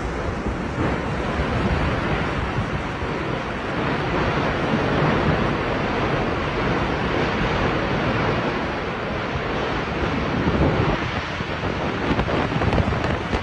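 Strong tornado winds blowing hard and steadily, with heavy wind buffeting on the microphone and gusts growing louder near the end.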